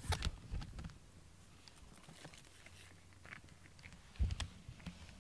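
Handling noise of a camera pressed against a cat's fur: rustling, scattered clicks and knocks, busy in the first second, then a loud bump about four seconds in.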